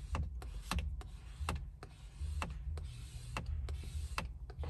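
Plastic squeegee being pressed and dragged over a wet protective film on a car's touchscreen: a run of short, sharp clicks about once a second, over a low rubbing rumble.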